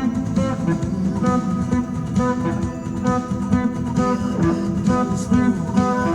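Lead guitar playing a melody over a backing track for lead guitar, with a steady rock beat under it.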